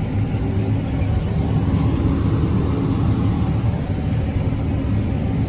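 Kubota tractor's diesel engine running steadily under load as it pulls a grain cart.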